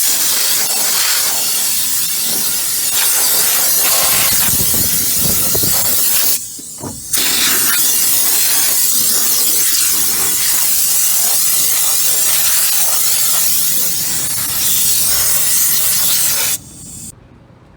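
Compressed-air blow gun blasting air over a forklift engine and radiator to clean off dust: a loud, steady hiss, interrupted once for about half a second some six seconds in, then cut off near the end.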